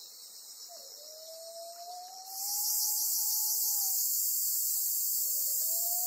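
Cicadas calling in a dense, high-pitched hiss that becomes much louder a little over two seconds in, as a nearby cicada starts up. Beneath it, a faint distant siren wails, rising, holding and falling, then rising again near the end.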